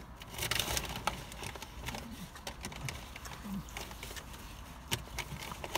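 Close-up chewing of a mouthful of spicy chicken sandwich: wet mouth clicks and crackles, busiest in the first second, with a couple of brief low hums.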